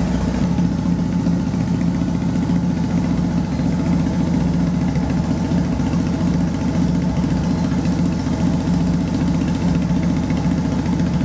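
A 2009 Triumph Bonneville SE's parallel-twin engine idling steadily through aftermarket Gasser Customs slip-on mufflers, an even exhaust note with no revving.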